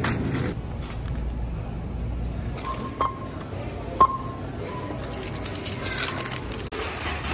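Short, pure beeps from a self-checkout barcode scanner, several in a row with the loudest about four seconds in, over background music.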